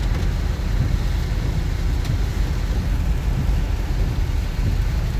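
Steady road noise inside a moving car in heavy rain: a low rumble with the hiss of tyres on a waterlogged road.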